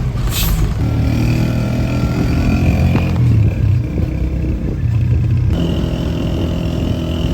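Bus engine running on the road, its pitch shifting a few times, with a brief sharp hiss about half a second in.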